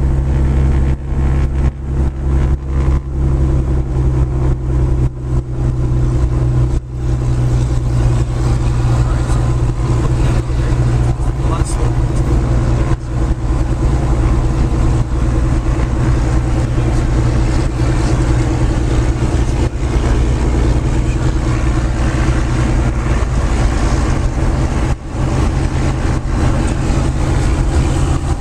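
Single-engine Lancair Legacy's piston engine and propeller running steadily while taxiing, heard inside the cockpit.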